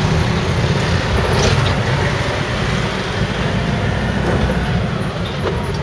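Steady engine and road noise of a songthaew pickup truck on the move, heard from its open rear passenger bed.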